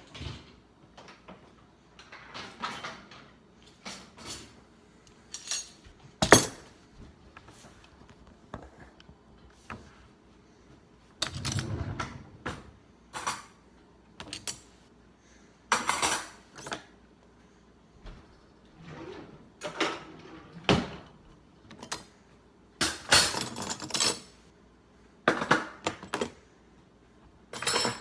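Dishes and cutlery clinking and clattering as they are lifted out of a dishwasher and set down, in irregular bursts. The loudest single knock comes about six seconds in.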